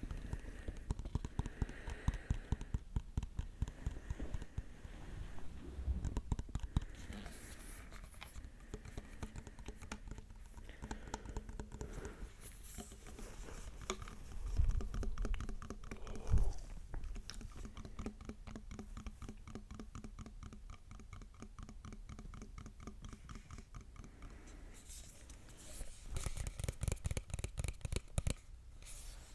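Close-up ASMR scratching and tapping in fast runs of small strokes, with a couple of heavier thumps about halfway through.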